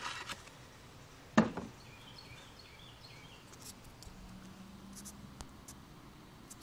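Handling noise from a phone being picked up: one sharp knock about a second and a half in, then faint rubbing and small ticks as a hand covers the microphone.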